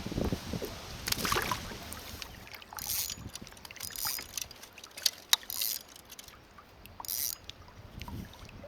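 A kayak paddle dipping and splashing in the water, a stroke every second or two, with two sharp knocks in the middle, likely the paddle against the hull.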